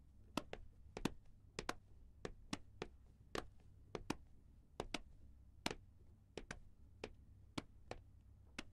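Footsteps on a hard floor: sharp, irregular steps, two to three a second, some in quick pairs as of more than one person walking, over a faint low hum.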